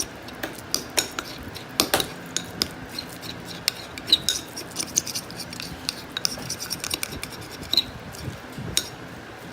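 A spoon stirring thick slime mixture with borax in a container, scraping and clinking irregularly against its sides, with a few brief ringing clinks.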